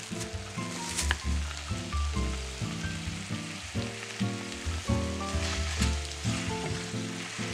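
Shrimp udon sizzling as it stir-fries in a pan, with a spatula scraping and stirring through the noodles, most strongly about a second in and again around five to six seconds in. Soft background music with a melody plays underneath.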